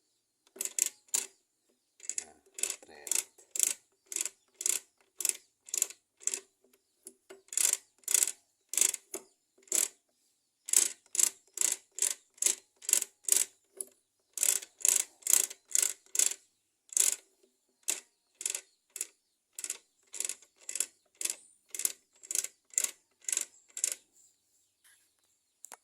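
Rapid metallic clicking from a modified Honda C100-family motorcycle gearbox being worked by hand, about two to three clicks a second in short runs with brief pauses.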